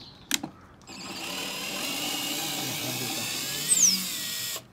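A click, then a cordless drill-driver runs steadily for nearly four seconds, backing out a mounting screw to take off the amplifier. It briefly gets louder near the end and then stops abruptly.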